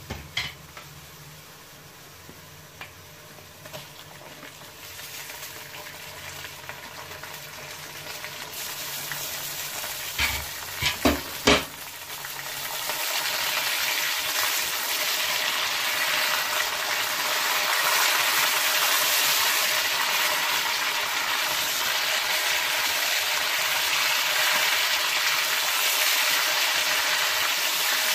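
Raw chicken pieces sizzling in hot oil with browned onions as they are stirred in the pot. There are a few sharp knocks about ten to eleven seconds in, after which the sizzling turns loud and steady.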